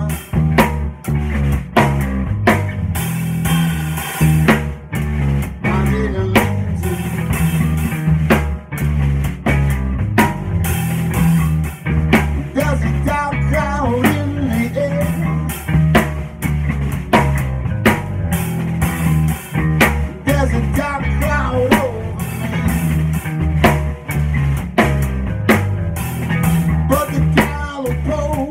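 Rock band playing an instrumental passage: a drum kit with dense, steady hits over guitar with bending notes and a low bass line that steps from note to note.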